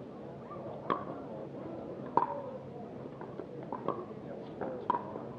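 A pickleball rally: paddles striking the hard plastic ball, giving sharp hollow pocks about a second apart, four clear ones with the loudest about two seconds in, over a murmur of spectators.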